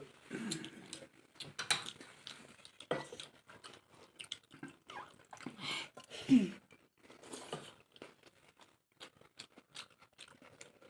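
A person chewing a mouthful of food close to the microphone: irregular wet clicks, smacks and crunches, with a brief louder sound a little past the middle.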